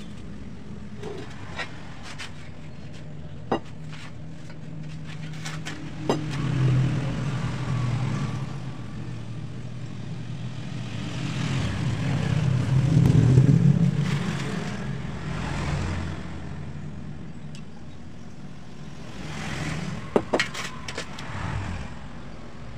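Fine sand poured through a paper funnel into a metal exhaust pipe, filling it before bending: a hissing rush with a low hollow rumble that swells and fades several times as the pouring comes and goes. A few short sharp knocks sound along the way, loudest about 20 seconds in.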